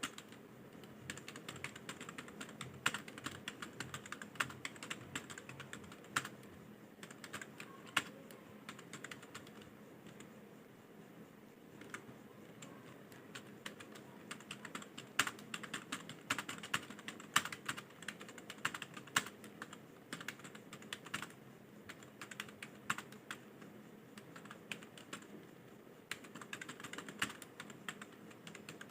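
Typing on a computer keyboard: a dense, uneven run of key clicks with short pauses.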